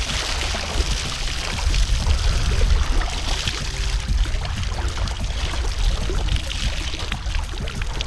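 Water pouring steadily out of the top of flooded waders and splashing onto wet ground as they are drained by tipping the wearer head-down.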